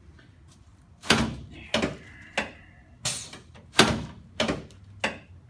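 Sharp knocks and clunks on a chiropractic treatment table while the patient is being repositioned on it, about eight in a little over four seconds, irregularly spaced.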